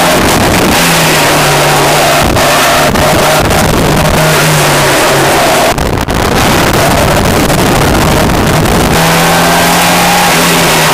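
Car engine under hard throttle heard from inside the cabin while lapping a race track, with heavy road and wind noise; the engine note drops briefly about six seconds in, then pulls again.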